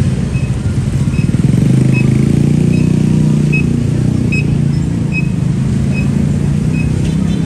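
A motor vehicle engine running close by, its hum growing louder about two seconds in, with a faint high pip repeating a little more than once a second.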